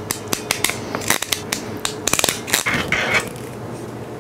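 Hand crimping tool clicking and crunching as it is squeezed on wire terminals: a quick, uneven run of sharp clicks for about three seconds, ending in a short scrape, then only light handling.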